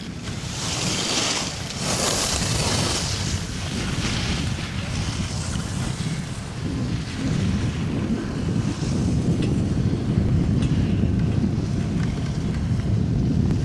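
Wind rushing and buffeting over a carried camera's microphone as a speedflying pilot flies fast and low over a ski slope: a steady, heavy low rumble, with a hissing rush high up in the first few seconds.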